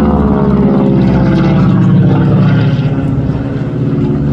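A single-engine propeller plane flying overhead: a loud engine and propeller drone whose pitch drifts slowly lower as it passes.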